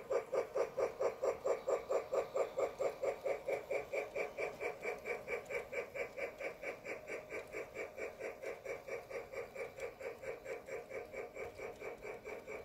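Lionel Polar Express toy train running on its track, giving a steady rhythmic pulse of about three to four beats a second that grows a little fainter in the second half.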